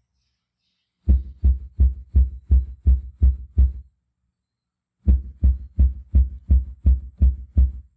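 Subwoofer playing CEA-2010 test tone bursts at 63 Hz: short low thuds, about three a second, in two runs of eight or nine with a pause of about a second between them. The drive voltage steps up from burst to burst while the analyser watches the distortion harmonics, looking for the loudest level the subwoofer can play before distortion crosses the threshold.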